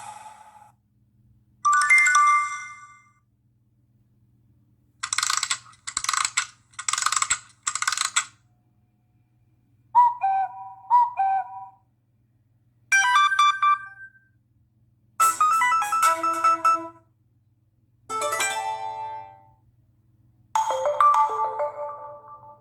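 Mobile phone notification tones played one after another: about seven short electronic chimes and jingles, each a second or two long, separated by brief pauses. One is four quick repeated pulses, another a two-note figure played twice.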